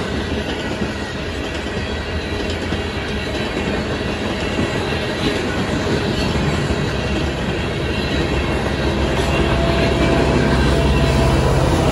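Coal train's freight cars rolling past on steel wheels, a steady rumble with clickety-clack over the rail joints. A low steady diesel engine drone builds near the end as a locomotive draws near.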